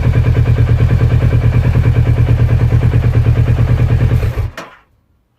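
Kawasaki Versys 650's parallel-twin engine idling steadily while the charging system holds the battery at about 14 volts. The engine is switched off about four and a half seconds in and the sound dies away quickly.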